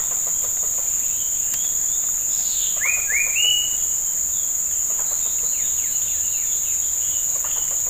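Steady, high-pitched shrill of an insect chorus from the surrounding forest. A bird calls about three seconds in with two quick rising notes and a short held note, followed by fainter short chirps.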